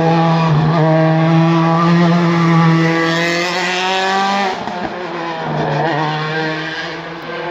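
Single-seater race car's engine at high revs accelerating uphill, holding a steady high note that climbs slightly. It breaks off briefly about four and a half seconds in, then comes back fainter as the car pulls away.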